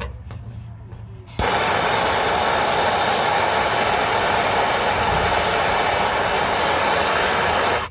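Handheld MAP-Pro gas torch flame hissing steadily while heating aluminum for brazing. It comes in suddenly about a second and a half in and stops abruptly near the end.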